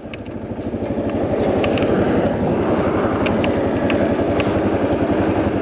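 Motorcycle engine running with an even low pulse, building up in level over the first second or so, with a few faint ticks on top.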